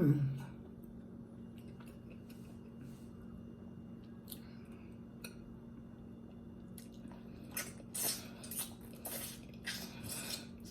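Close-up wet chewing and lip-smacking of someone eating oxtail with their fingers: a cluster of short squishy mouth noises in the second half, over a faint steady hum.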